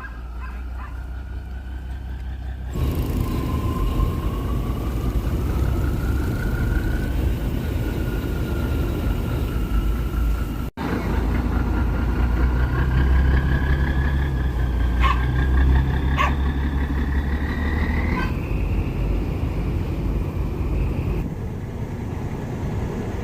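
Boat engine running steadily, a low rumble with a whining tone that slowly rises and falls as the throttle changes. The sound changes abruptly twice, about three and eleven seconds in.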